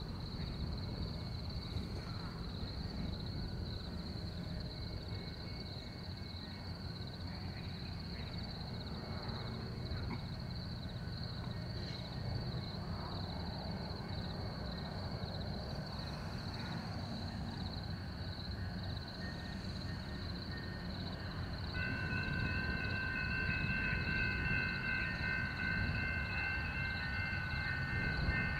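Distant horn of an approaching Amtrak P42DC locomotive sounding a sustained multi-note chord. It begins about seven seconds before the end and holds on, over a steady low rumble.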